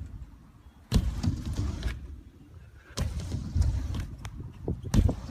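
Low gusting rumble of wind on the microphone, with three sharp knocks about two seconds apart.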